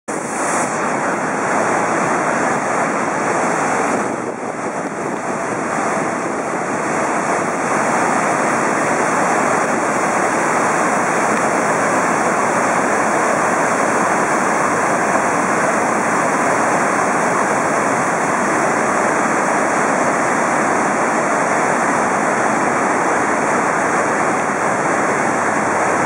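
Steady loud rush of whitewater: river water pouring over a dam spillway and running through rapids, with a short dip in level about four seconds in.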